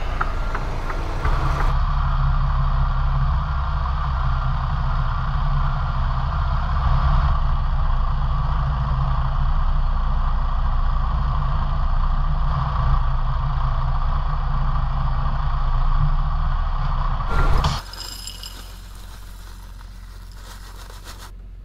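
Semi truck's diesel engine running steadily while the tractor-trailer is backed into a loading dock. About four seconds before the end it cuts off suddenly to a much quieter steady hum.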